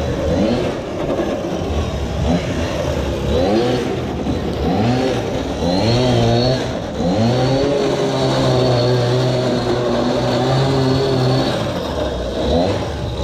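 Homemade RC go-kart's small engine revving up and down in quick rises and falls as it drives, then holding high revs steadily for a few seconds before easing off near the end.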